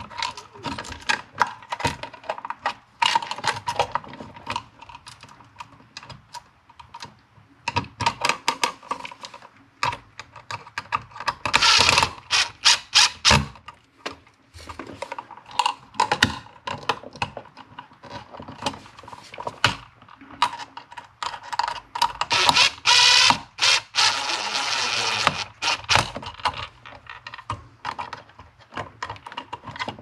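Clicking, knocking and scraping from a blue plastic old-work electrical box and a duplex receptacle being handled, its stiff wires folded in and the box pushed into a hole in drywall. There are two longer, louder scraping stretches, one near the middle and a longer one about three-quarters of the way through.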